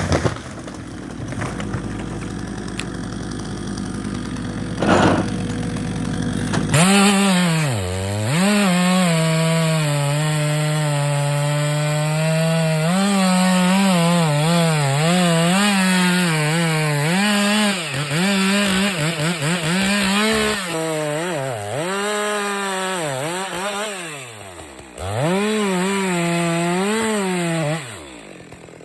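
A two-stroke chainsaw cutting wood at full throttle, its high engine note sagging again and again as the chain bogs in the cut and then recovering. It cuts in abruptly after about seven seconds; before that there is a noisy stretch with a single knock.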